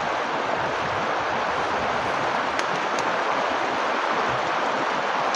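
Steady rushing of flowing stream water, an even hiss with no change in level.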